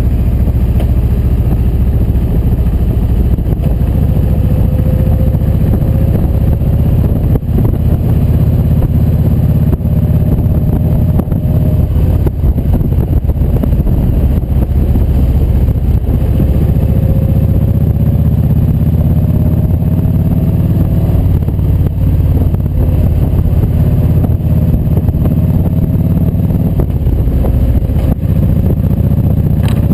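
Kawasaki Vulcan 1700 Voyager's V-twin engine running steadily at cruising speed, heard from the moving bike with wind rushing over the microphone. The engine's pitch rises and falls gently a few times.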